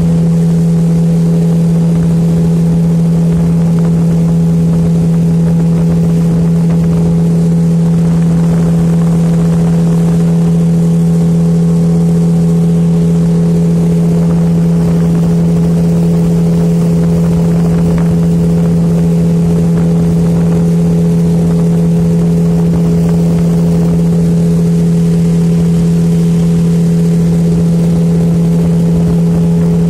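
Small outboard motor pushing a boat at a steady cruising speed: one constant engine drone that does not change in pitch or loudness.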